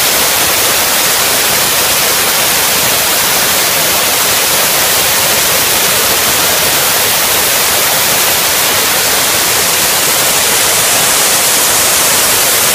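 Safety valves of LNER Class A4 Pacific 60019 Bittern blowing off: a loud, steady hiss of escaping steam, the sign that the boiler has reached full working pressure.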